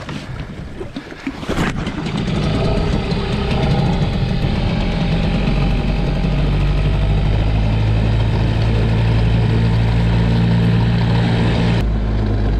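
Small Nissan outboard motor on an inflatable dinghy running steadily at low speed, settling into an even note about two seconds in; near the end a click and a drop in its note as the throttle or gear is changed.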